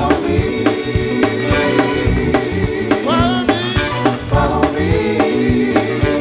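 Gospel music with a steady beat, a sung vocal line coming in about halfway through.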